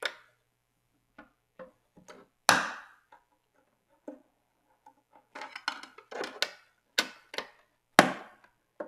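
Long-necked Torx T15 screwdriver clicking and knocking against the plastic case and screws deep in a Macintosh's handle recess as the screws are taken out: a string of sharp, irregular clicks, with the loudest knock about two and a half seconds in and a quicker cluster a little after five seconds.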